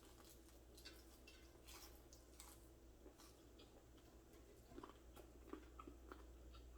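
Near silence with faint chewing and small scattered mouth clicks, a few slightly louder ones about five seconds in.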